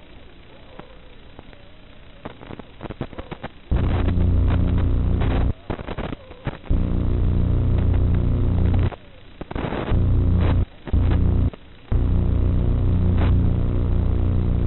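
Electrical noise on an analog FPV video link's audio channel, as recorded by the goggles. At first it is faint hiss with scattered crackles and clicks. After a few seconds a loud low buzz with many harmonics cuts in and drops out abruptly several times as the signal breaks up.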